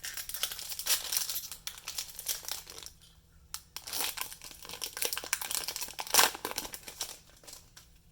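Foil wrapper of a Yu-Gi-Oh booster pack crinkling as it is handled and torn open, in two stretches with a short pause about three seconds in.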